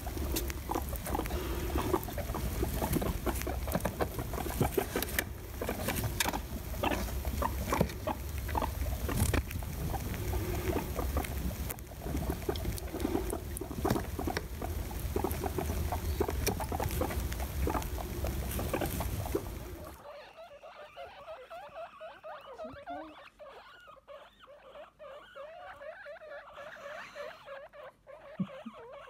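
Guinea pigs making small squeaks amid rustling. For most of the clip a loud crackling, clicking noise with a low rumble covers them, then it drops off suddenly, leaving quieter short squeaks and light rustling.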